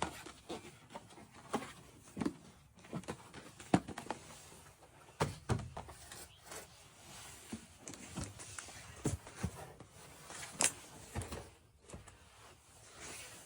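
Irregular taps, clicks and light knocks of toy packaging and plastic toy parts being handled during unboxing.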